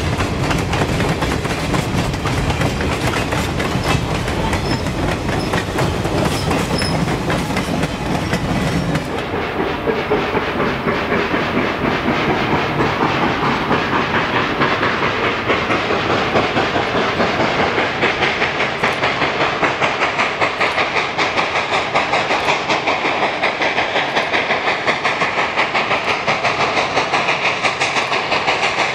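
Freight cars rolling past with the clickety-clack of wheels over rail joints. About nine seconds in this gives way to the 2-8-0 steam locomotive 734 working hard under heavy smoke, its exhaust beating in a steady rhythm of about two beats a second.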